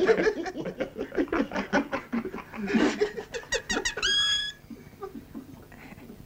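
Stifled giggling in quick pulses for about three seconds, then a short run of high-pitched squeaks ending in one held squeak.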